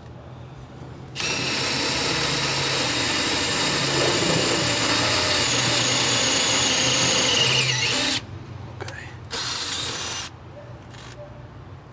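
Cordless drill driving a screw through a plastic hose-carrier flange into a steel trailer frame: one long steady run of about seven seconds, then a brief second burst about a second later.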